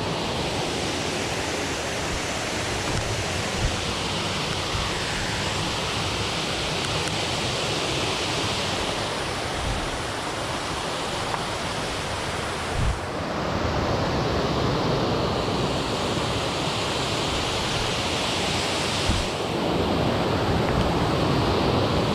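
Water pouring over the Holstein Dam spillway, a steady rushing noise heard from close by, growing a little louder about thirteen seconds in and again near the end.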